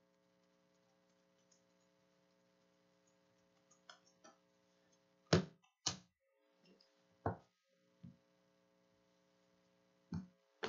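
Handling noises from trading cards on a tabletop: a few separate knocks and clicks, the two loudest about five and a half seconds in, over a faint steady hum.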